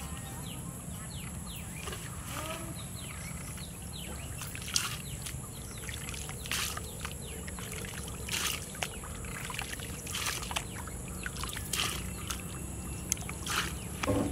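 Hands sweeping and rustling through wet grass, about six short swishes spaced a second and a half to two apart, over steady background noise with faint short chirps.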